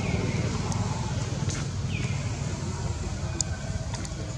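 Outdoor ambience: a steady low rumble, with two short falling chirps about two seconds apart and a few faint clicks.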